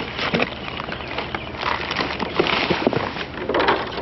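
Rummaging through a box of discarded parts: rustling and irregular knocks and clatters as items are shifted about.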